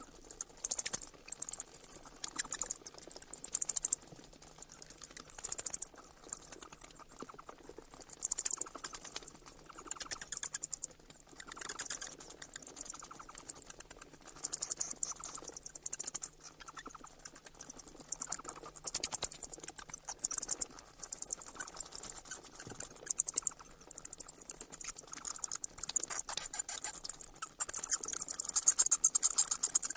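Bats chittering: rapid, very high-pitched clicks and squeaks in repeated bursts of a second or two each.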